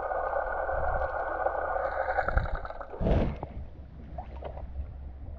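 Motorboat engine running with a steady low drone; its higher-pitched running sound fades about two seconds in, and a brief rushing noise comes about three seconds in.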